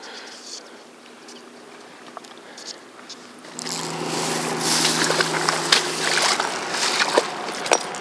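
Faint steady hiss of moving water, then, about three and a half seconds in, a louder rush of rustling with scattered clicks and crunches: footsteps through dry grass and over stones on a riverbank.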